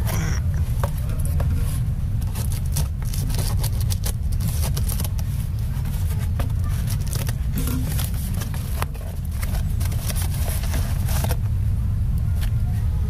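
A steady low rumble under crinkling, crackling and tearing of clear plastic wrap and packing tape as a parcel is opened by hand.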